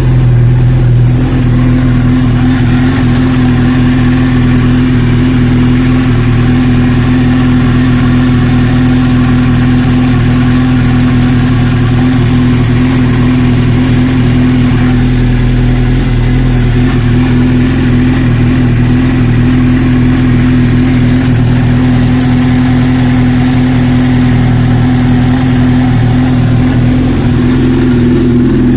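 Suzuki GSX-R750 (1998 SRAD) inline-four engine running at a fairly steady speed in gear, driving the rear wheel as it spins off the ground.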